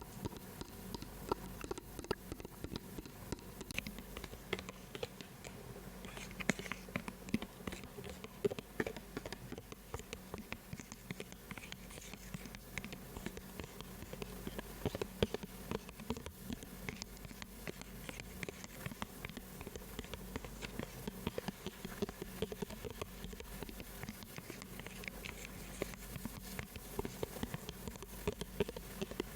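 Close-miked ASMR trigger sounds: a continuous stream of quick, irregular small taps and clicks, over a faint steady low hum.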